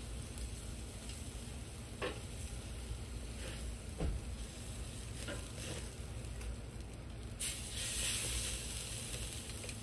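Tri-tip sizzling on the hot grate of a charcoal kettle grill, with a couple of sharp clicks of metal tongs on the grate as the meat is lifted and turned. The sizzle grows louder about seven seconds in.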